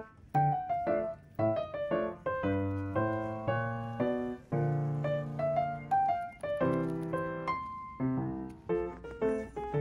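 Background music: a piano playing a light melody of short notes, with a few longer held chords.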